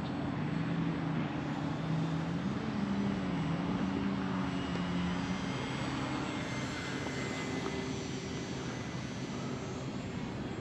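Battery-powered electric motor and propeller of a small foamboard radio-controlled plane flying overhead: a steady drone whose pitch wavers slightly, growing a little fainter toward the end as the plane flies off.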